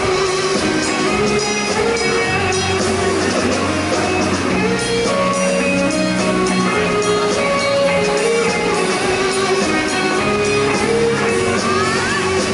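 Live amplified rock band playing, with an electric guitar carrying a stepping melody over the band.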